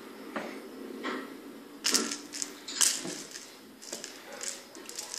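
A kitten batting a feathered ball toy on a tiled floor: irregular clicks and clatters as the toy knocks on the tiles, with two sharp knocks about two and three seconds in.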